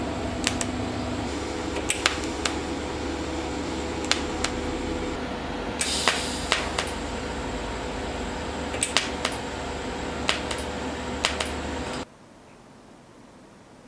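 Workshop sounds: a steady mechanical hum with sharp clicks and knocks scattered through it, cutting off suddenly near the end.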